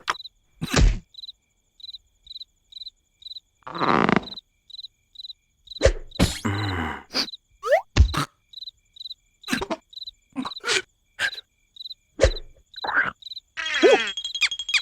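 Cartoon soundtrack: a cricket chirping steadily, about twice a second, under a string of short cartoon sound effects: thumps, quick swishes and brief voiced creature noises. Near the end a steady high tone and music come in.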